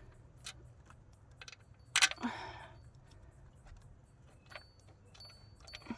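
Light metallic clicks and clinks of an alternator mounting bolt and tools being handled while trying to start the bolt in its hole, with one sharper knock about two seconds in followed by a brief scrape.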